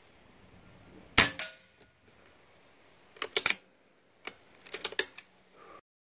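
Ataman M2 PCP air rifle firing a single .25-calibre shot about a second in, a sharp crack with a fainter knock a fraction of a second after it. Later come quieter short groups of metallic clicks as the rifle's action is cycled.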